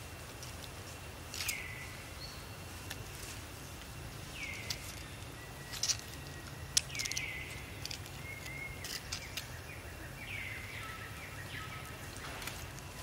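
Outdoor background with a steady low hum, broken by about six short high calls that each slide down in pitch and level off, plus a few light clicks.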